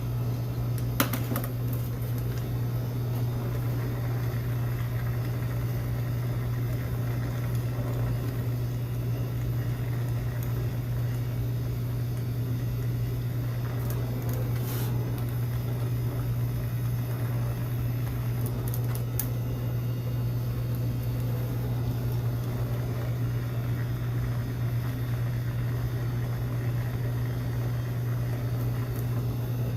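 Steady low mechanical hum from a running machine, with a few faint clicks.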